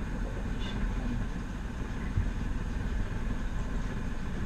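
Engine of a glass-bottom tour boat running steadily at low speed, a constant low drone with no change in pitch.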